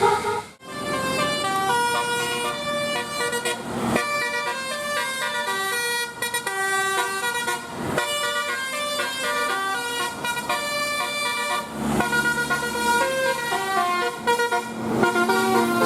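Bus 'telolet' multi-tone air horn playing a fast melody of short notes that change pitch several times a second, with a brief break just after the start.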